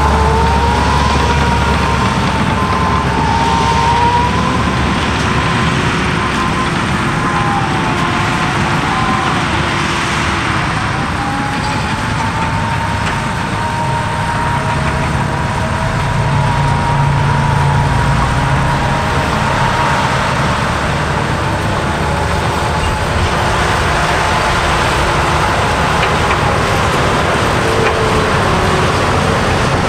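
Cat D6K2 bulldozer working: its diesel engine runs steadily under several whining tones that slowly rise and fall in pitch.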